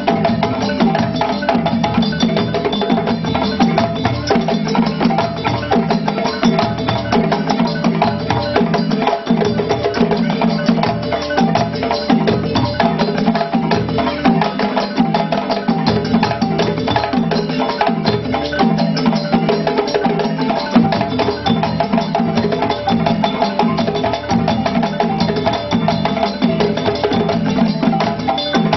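Live West African percussion ensemble: several balafons (wooden xylophones) and djembe hand drums playing together in a fast, dense, unbroken rhythm.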